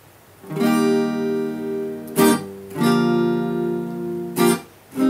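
Acoustic guitar strumming chords, each left to ring for about two seconds, with a short, sharp strum between them.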